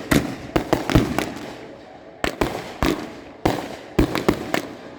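A rapid, irregular series of sharp bangs and pops, about a dozen, each with a short echoing tail.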